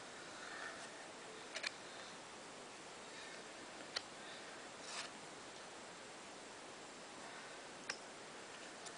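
Panini Adrenalyn XL trading cards being handled: a few faint clicks and taps of stiff card over a steady hiss, the sharpest about four seconds in.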